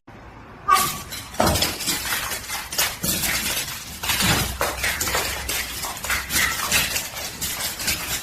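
Rapid, irregular clattering and clinking of small hard objects, starting about a second in and going on without a break.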